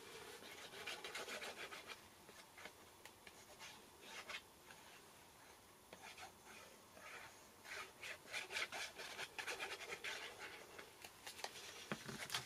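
Sponge tip of a liquid glue bottle rubbed over cardstock in many short, faint scratchy strokes, coming thicker in the second half.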